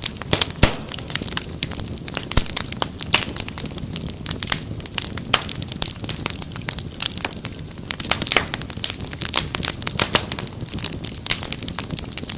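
Wood fire crackling steadily: many irregular sharp pops and snaps over a low rumble of flames.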